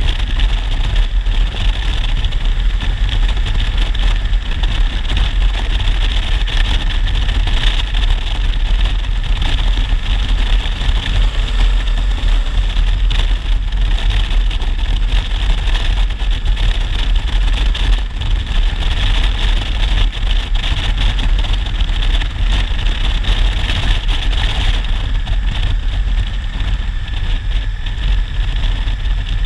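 Honda Africa Twin's parallel-twin engine running steadily at road speed, under a loud, even rumble of wind buffeting the camera microphone. There are no shifts or revs and no sudden sounds.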